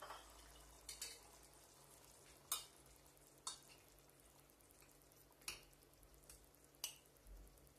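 A spoon clinking and scraping in a stainless steel pot of fish stew as portions are spooned out: a handful of faint, separate clicks a second or so apart.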